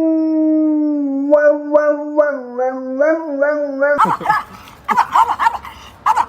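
A dog howling in one long held note, slightly falling, with a few short rising yelps breaking into it. About four seconds in, the howl stops suddenly and choppier, shorter sounds follow.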